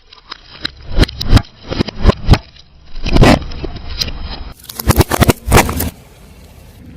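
Crunchy objects crushed under a car tyre: a run of sharp cracks and snaps over a low rumble, in several clusters, the last of them a burst of cracking about five seconds in.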